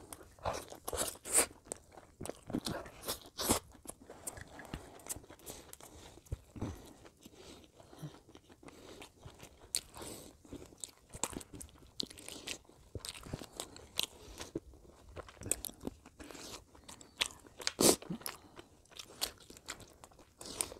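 Close-miked eating by hand: wet chewing, crunches and lip smacks of a man eating lamb curry and rice, in irregular bursts, with a louder smack about 18 seconds in.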